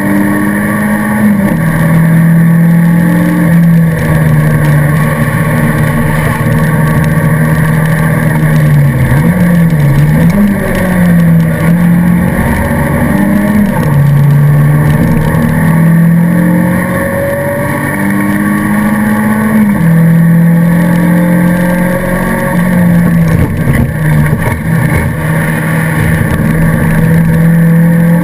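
Alfa Romeo 155 race car's engine, heard from inside the stripped cockpit, running hard under racing load. Its pitch steps down and up with gear changes, with a quick run of dips and rises between about nine and fourteen seconds in.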